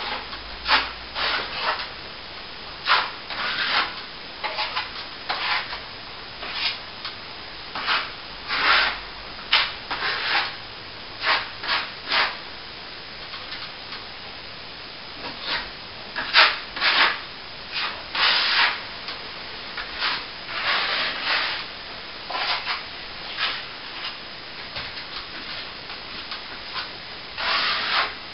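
Plaster being hand-sanded, abrasive rubbing in short irregular strokes with a couple of pauses.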